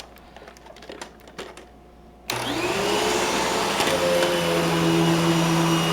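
A few light clicks, then the Eureka Boss Smartvac 4870 upright vacuum is switched on about two seconds in, its motor spinning up quickly and settling into a steady run with a whine.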